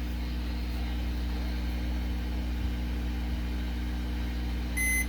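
Steady low hum, then near the end a short high electronic beep from a multimeter's continuity test as the laptop's left-click button is pressed, showing the switch makes contact.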